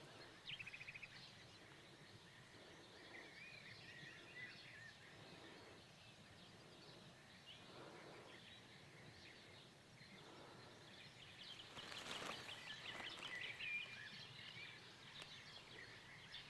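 Faint birdsong: scattered high chirps and a short rapid trill about half a second in, over quiet outdoor background noise. A brief louder rush of noise comes about twelve seconds in.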